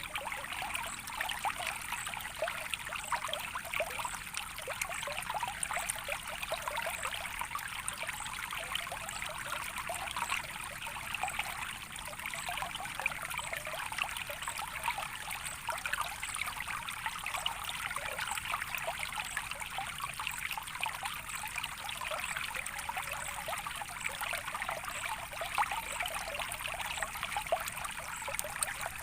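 Running water in a small stream, trickling and babbling steadily without a break.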